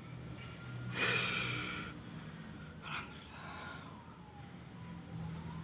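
A man breathing out heavily, winded from working a high-pressure hand pump: a long breathy exhale about a second in, then shorter breaths around three seconds.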